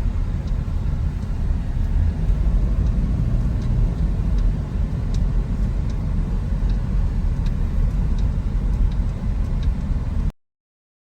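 Steady low rumble of a moving vehicle's engine and road noise, cutting off suddenly near the end.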